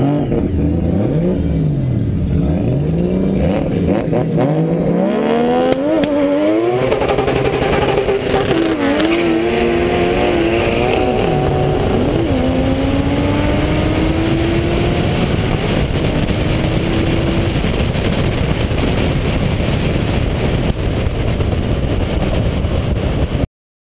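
Drag-racing car engine blipped up and down several times at the start line, then launched at full throttle: the pitch climbs and drops back at each of several gear changes, then keeps climbing as the car runs at speed with heavy wind and road noise. The sound cuts off suddenly near the end.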